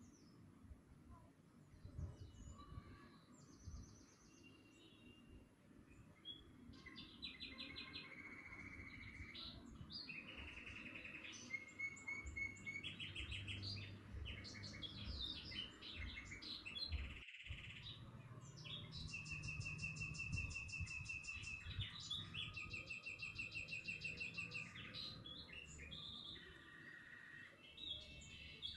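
A small songbird singing faintly in runs of fast trills and repeated chirps, over low room noise. The sound drops out completely for a moment about two-thirds of the way through.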